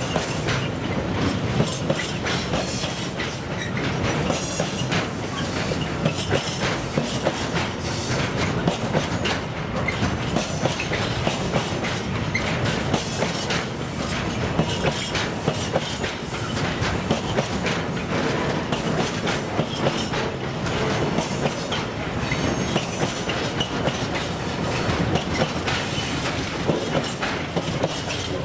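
Freight train of container flat wagons rolling past at steady speed, the wheels clicking and clattering continuously over the rail joints.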